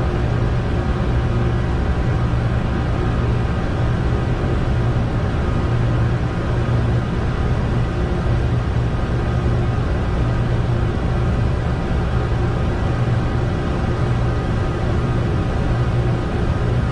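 Steady flight-deck noise of a Boeing 747-200 in the climb: an even low drone of airflow and engines, with a faint constant hum running through it.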